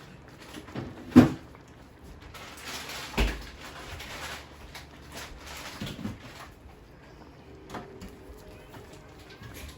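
A few knocks and thumps in a kitchen: a sharp knock about a second in, a heavier thud around three seconds in, then lighter clicks and rustling.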